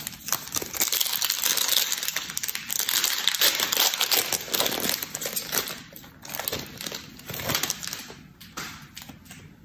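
Foil wrapper of a Panini Donruss Optic Fast Break card pack crinkling and tearing as it is ripped open by hand, quieting near the end.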